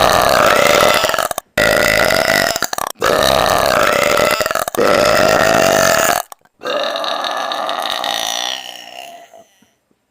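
A person belching loudly several times in a row, about five long, drawn-out burps of a second or more each with short breaks between them, the last one tailing off slowly.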